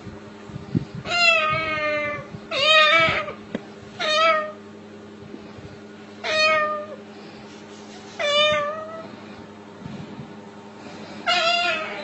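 White cockatoo meowing in imitation of a cat: six separate drawn-out meows, each under a second and wavering in pitch, a second or two apart.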